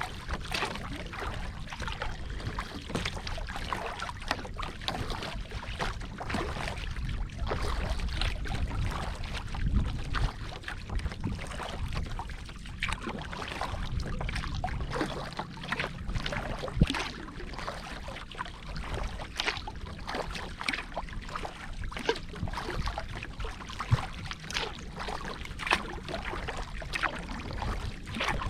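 Water splashing and dripping around a kayak: many irregular small splashes and drips over a low wind rumble on the microphone.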